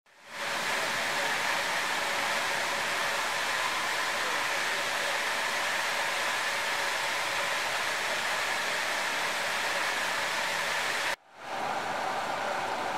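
Steady rush of flowing stream water, an even hiss that fades in at the start, drops out briefly about eleven seconds in, and then resumes.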